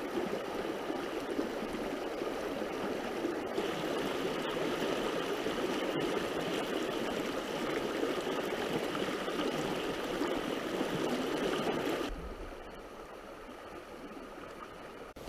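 River water running steadily over a shallow stretch. About twelve seconds in, the sound drops suddenly to a quieter level.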